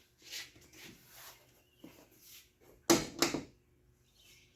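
Hand work on truck door hardware: a few soft scrapes and rustles, then two sharp clacks about a third of a second apart, the loudest sounds.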